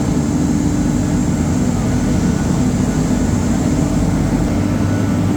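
Olive mill machinery running with a steady, loud mechanical hum and low rumble.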